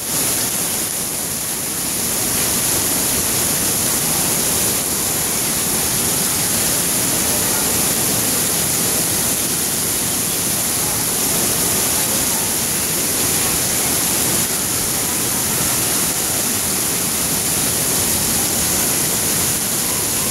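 Steady rush of water pouring down an open water slide's flume into its runout.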